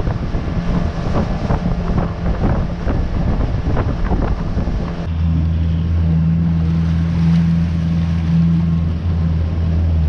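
Wind buffeting the microphone over a fishing boat's motor running on open water; about five seconds in the sound changes suddenly to the boat's motor humming steadily, its low tones plain with little wind.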